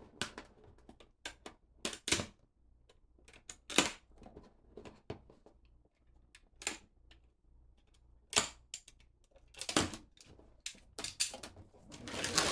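Cardboard faucet box and its packaging being opened and handled: irregular short crackles, rustles and knocks, the loudest about four seconds in and again near eight and ten seconds.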